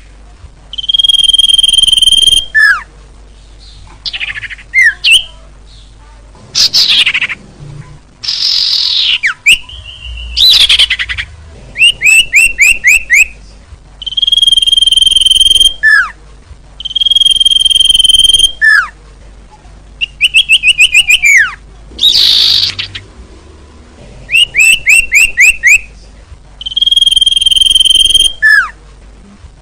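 A looped bird-lure recording of small songbird calls. A held high whistle is followed by a short falling note, then a quick run of about five falling chirps, and the cycle repeats about every four seconds. A few louder sweeping calls come in the first half.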